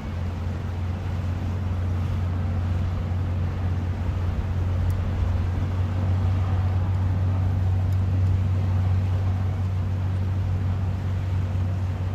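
Steady low engine hum with a faint rushing noise over it, unchanging throughout.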